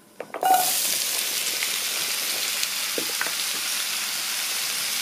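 Diced red and green bell peppers tipped into hot oil in a frying pan: a few light knocks as they land, then loud, steady sizzling from about half a second in.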